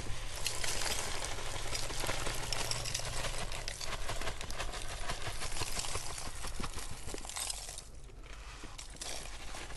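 Industrial salt poured from a sack into an earthing pit, the granules hissing and pattering onto the charcoal layer; the pour stops about eight seconds in.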